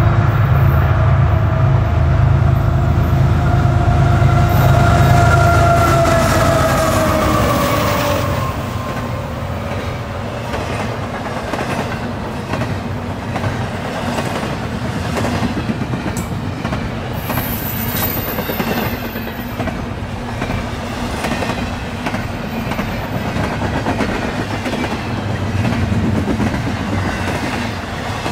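CSX intermodal freight train going by. For the first several seconds the locomotive horn sounds over the engines' heavy low rumble, dropping in pitch as the locomotive passes before it stops. Then double-stack container well cars roll past with steady wheel clatter on the rails.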